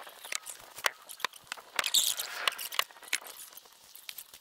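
Handling and movement noise: scattered light clicks and taps, with a brief rustle about two seconds in.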